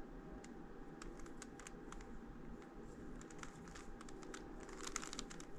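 Rubik's Cube being turned quickly by hand: a quiet run of small plastic clicks as the layers are twisted.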